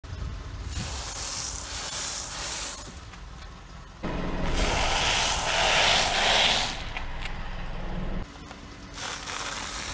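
Car tyre rolling over brittle wafer discs on asphalt and crushing them, a dry crackling crunch mixed with tyre noise. It comes in three stretches, the loudest from about four to seven seconds in, over a low rumble from the car.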